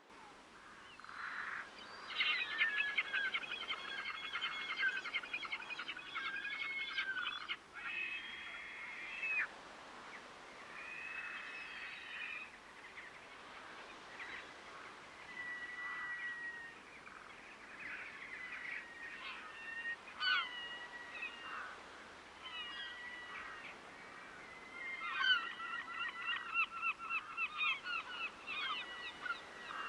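A flock of waterbirds calling, with many honking calls overlapping. The calls come thickest in the first few seconds and again near the end.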